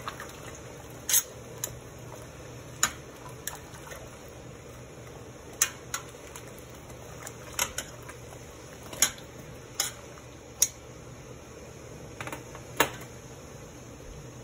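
Hands separating cabbage leaves in a steel pot of hot water: scattered sharp clicks and knocks, about a dozen, one every second or two, over a steady low hum.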